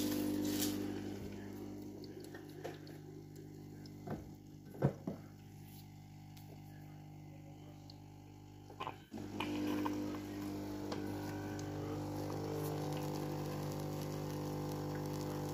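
Siemens bean-to-cup coffee machine dispensing frothed milk and then coffee into a mug: a steady pump hum with a few clicks around the middle. The hum breaks off briefly about nine seconds in and comes back louder.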